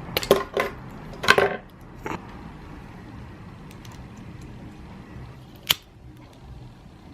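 Small metal parts and hand tools being handled and worked: a quick cluster of sharp clicks and snips in the first couple of seconds, then one more sharp click near the end.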